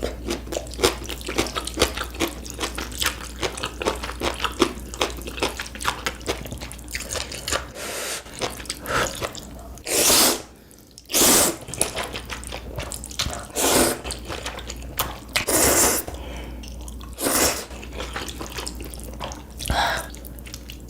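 Close-miked eating of ramen: quick wet chewing and mouth clicks, then about six short noodle slurps from roughly the middle on, the first two the loudest.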